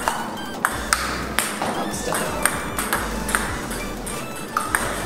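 Table tennis rally: the ball clicks off the bats and bounces on the table, a sharp tick every half second or so, one bat faced with short-pips rubber. Background music plays underneath.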